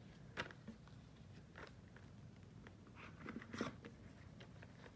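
Faint rustling and crinkling of paper banknotes and plastic binder pockets being handled, a few separate touches with a busier cluster about three and a half seconds in.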